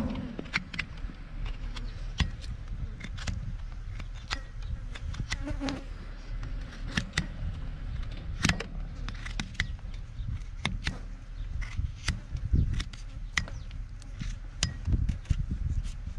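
Flies buzzing around a cow's hoof with a screwworm wound, over irregular sharp clicks and scrapes as a hoof knife slowly pares away the hoof horn.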